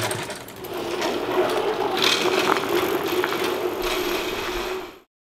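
A steady mechanical rattle and hum that fades out abruptly near the end.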